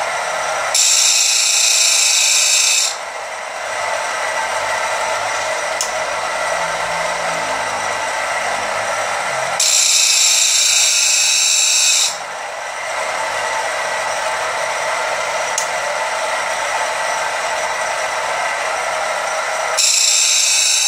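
Homemade belt-driven end mill and slitting saw sharpener running: a steady whir from its electric motor and grinding wheel. Three times, roughly ten seconds apart, it swells into a louder, higher hiss that lasts about two seconds.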